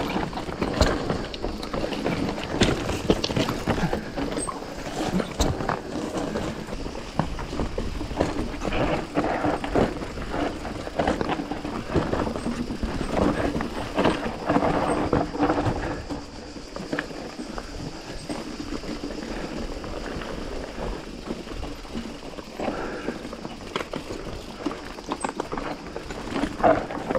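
Mountain bike descending a rocky trail: tyres rolling over loose stone while the bike rattles and clatters with many quick knocks. It is busier and louder in the first half and eases a little about halfway through.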